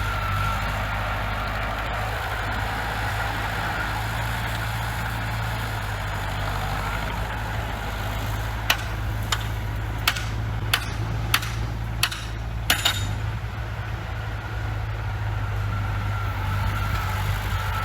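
Bulldozer's diesel engine running steadily, with a run of about eight sharp knocks in the middle.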